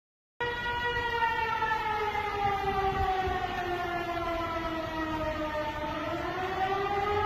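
Outdoor tornado warning siren sounding, starting abruptly about half a second in, its pitch sliding slowly down for about five seconds and then climbing again, over a low rumbling noise.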